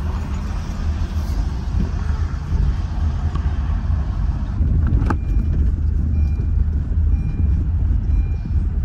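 Steady low rumble of a car's engine and tyres heard from inside the cabin while driving slowly on a rough, narrow road, with one sharp knock about five seconds in.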